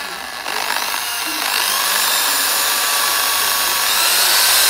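Handheld corded electric drill boring a small hole through a trap hook's handle: the motor whine steps up about half a second in and grows louder from about a second and a half, then holds steady, rising slightly in pitch near the end.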